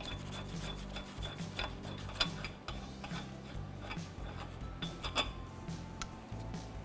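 Lug nuts being spun off the wheel studs of an alloy wheel by hand: light metallic clicks and the rub of threads, a few sharper clinks scattered through. Soft background music runs underneath.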